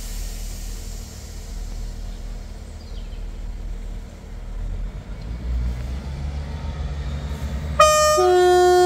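Diesel multiple unit's engines running with a low rumble that builds about two-thirds of the way through. Near the end its horn sounds two notes: a short higher note, then a longer lower one.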